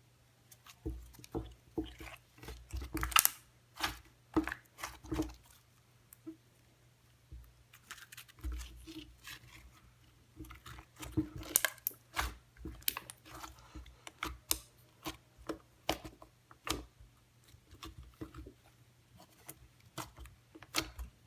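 Clear slime being squeezed, poked and stretched by hand, making irregular sticky clicks, pops and squelches.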